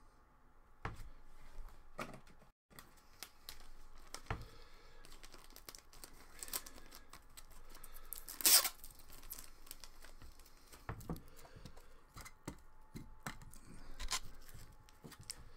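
Hands handling plastic trading-card cases and packaging: scattered light clicks and knocks, with one short tearing rip about halfway through that is the loudest sound.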